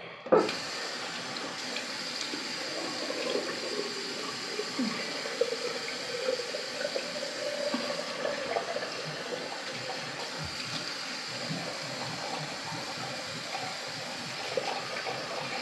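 Bathroom sink tap running steadily, with water splashed about by hand while an exfoliating face mask is rinsed off.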